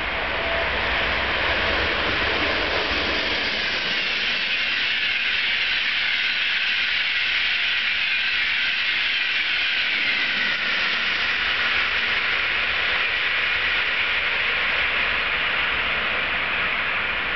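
ETR 500 Frecciarossa high-speed electric train passing at speed: a loud, steady noise that builds slightly over the first two seconds and then holds as the long trainset goes by.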